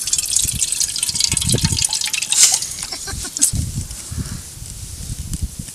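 Hands scooping thick, wet masala marinade out of a bowl and dropping it onto prawns in a banana-leaf-lined hollow watermelon: irregular wet scraping and squelching, with scattered small clicks and soft thumps.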